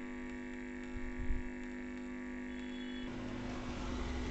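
Steady electrical mains hum with many tones stacked above it, with a brief knock a little over a second in. The hum cuts off about three seconds in, leaving a faint hiss.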